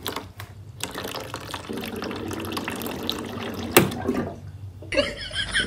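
Water running from a water dispenser's tap as a cat presses it, a steady splashing flow with a sharp click about four seconds in, after which the flow stops. Near the end, rapid repeated high-pitched calls cut in.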